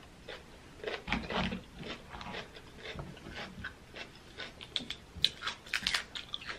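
Close-miked chewing and mouth sounds, then a run of sharp cracking and snapping clicks near the end as a king crab leg's shell is pulled apart by hand.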